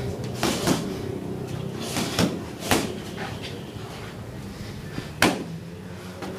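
Boxing punches landing in quick, irregular blows, about six sharp smacks in all, the hardest about five seconds in.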